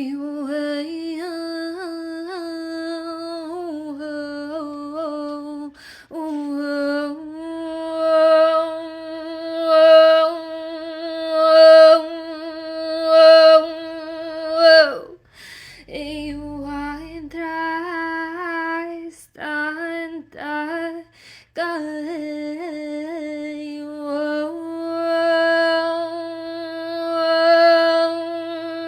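A woman's voice singing long held tones without words, light-language vocalising, with small wavering turns on the notes. It swells louder in the middle and breaks off briefly for breaths.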